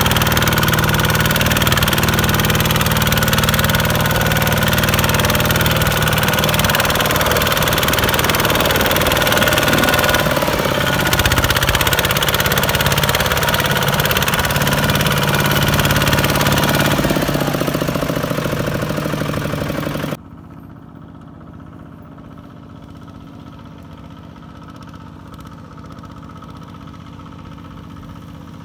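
Kubota ZT155 walking tractor's single-cylinder diesel engine running steadily close up while hauling a sack-laden trailer through mud. About twenty seconds in the sound cuts abruptly to a much fainter, steady engine sound.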